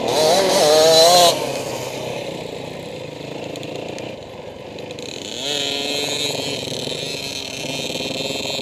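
Dirt bike engine running on a motocross track, revving up and down and loudest in the first second or so, easing off, then picking up again about five seconds in and holding a steady higher pitch.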